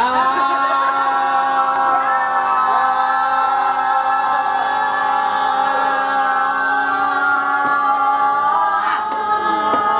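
A group of people holding one long drawn-out "yaaam" cry together, the Malaysian Chinese yam seng toast, kept up at a steady pitch for almost ten seconds.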